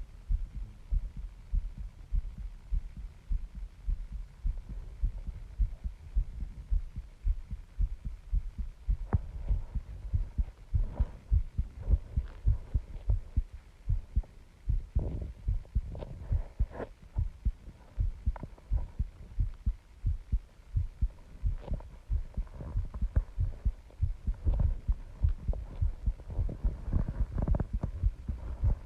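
A person's heartbeat, pounding in a quick, regular rhythm of deep low thuds, about two a second. Light scratchy clicks come and go over it from about nine seconds in and again near the end.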